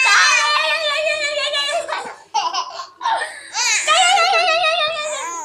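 Baby's loud, high-pitched vocalizing in two long wavering stretches of about two seconds each, with a short break in the middle.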